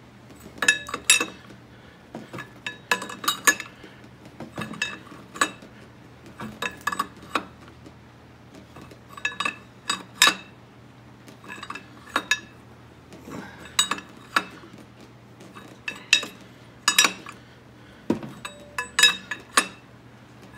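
Open-end wrench clinking against the nut of a Moroso harmonic balancer installer as it is worked round in short strokes, slowly pressing the balancer onto the crankshaft of a small-block Chevy 350. Metallic clinks come in little clusters, one every second or two.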